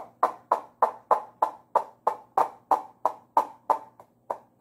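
Plastic-cup 'chicken' noisemaker: a wet paper towel gripped on a yarn string threaded through the cup's bottom is pulled along the string, and the cup sounds a rhythmic clucking like a chicken. It gives about three sharp squawks a second, each fading quickly.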